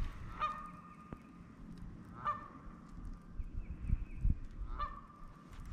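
A goose honking three times, each call short and about two seconds apart, over a faint low rumble of wind on the microphone.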